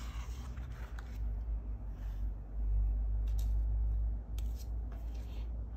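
Paper page of a picture book being turned by hand: soft scattered rustles over a low handling rumble that is heaviest about halfway through.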